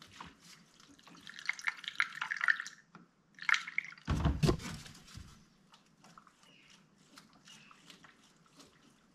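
Coolant being poured from a plastic jug through a funnel into a car's expansion tank, splashing and gurgling in two spells, with a deep thump about four seconds in; the tank is being topped up to its maximum level.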